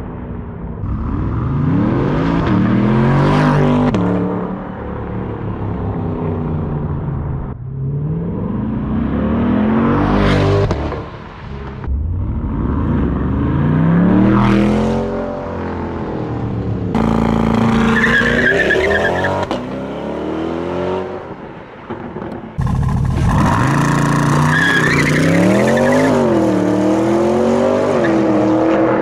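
C8 Corvette's 6.2-litre V8 through an ArmyTrix aftermarket exhaust, driven hard. Engine pitch climbs and drops in three separate pulls in the first half, then wavers up and down with the throttle through the second half.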